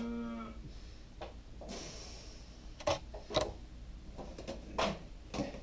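A held vocal hum stops about half a second in, followed by a handful of scattered sharp clicks and taps from metal foil pie tins being handled.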